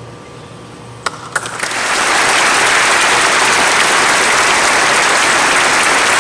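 Audience applause: a couple of lone claps about a second in, then the crowd breaks into steady, dense clapping.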